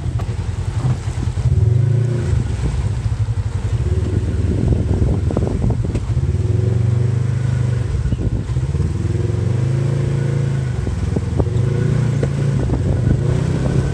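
Off-road buggy's engine running and revving up and down repeatedly as it crawls over rocky ground, with scattered knocks and rattles from the rough terrain.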